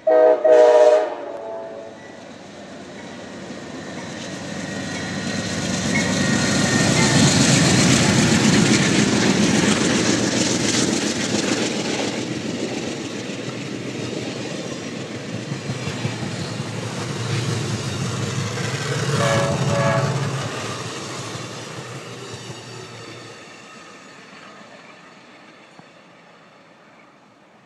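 Amtrak California Zephyr passenger train, a diesel locomotive hauling bilevel Superliner cars, blasts its horn briefly as it approaches, then rushes past with a rising and fading rumble and wheel clatter over the rails. A horn sounds again briefly about twenty seconds in, and the noise fades as the train goes away.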